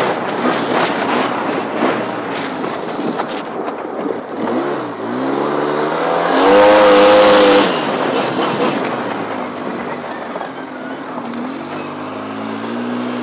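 Polaris ATV engine running while riding. It revs up about five seconds in, the pitch climbing to its loudest and highest just past halfway, then drops back to a lower, steady note near the end.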